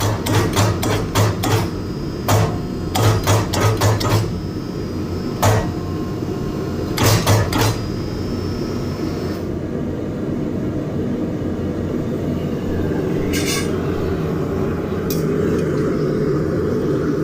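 Hammer blows on steel while forging a crowbar tip: quick runs of ringing strikes, about three a second, with short pauses between them. About halfway through the striking stops and a steady low rumble takes over, broken by two single strikes.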